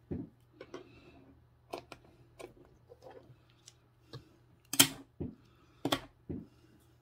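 Hands handling fishing tackle, a spool of hook link, on a plastic tackle box: scattered light clicks and taps, with two sharper clicks about five and six seconds in.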